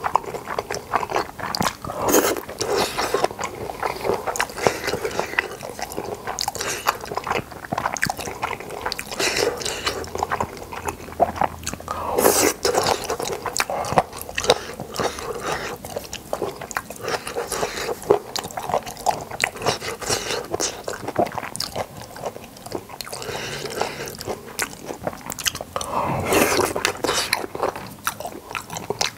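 Close-miked chewing of spicy boneless chicken feet and Chinese glass noodles: a steady run of wet, sticky mouth clicks and smacks, with longer, louder bursts about twelve seconds in and near the end.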